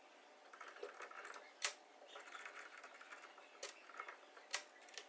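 Faint handling of a drill press chuck as a 1/8 inch drill bit is fitted: light rattling and rustling, with a few sharp metal clicks, the loudest about a second and a half in.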